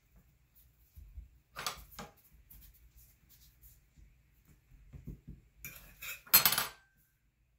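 A metal fork clinking and scraping on a granite countertop while dough is cut. There are a couple of light clinks about a second and a half in, then a louder clatter a little past six seconds with a short metallic ring.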